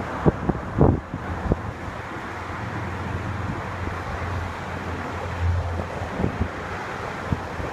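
Quint fire truck's diesel engine running with a low, steady hum, with wind buffeting the microphone in a few sharp gusts during the first second and a half.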